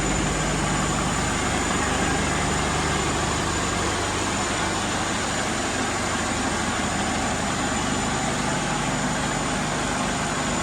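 Vehicle engine idling steadily, with a thin steady high tone running over it.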